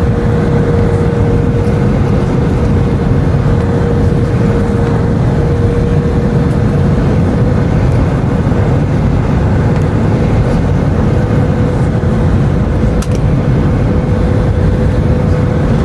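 Airbus A319 cabin noise heard from a window seat: a steady, loud rumble of engines and rushing air, with one steady mid-pitched whine running through it.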